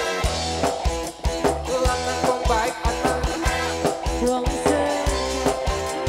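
Live dangdut band playing, with a steady drum beat and bass under keyboard and guitar.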